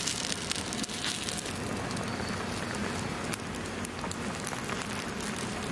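Momos (dumplings) pan-frying in oil on an electric grill pan: a steady, dense sizzle and crackle of hot oil.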